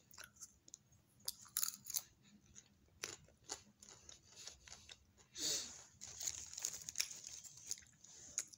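A person chewing raw apple close to the microphone: many small crunches and wet clicks, with one louder breathy noise about halfway through.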